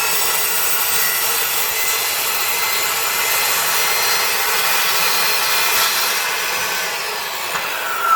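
Guild 1400 W 185 mm circular saw running under load, its blade cutting steadily through a decking board. The pitch shifts briefly near the end.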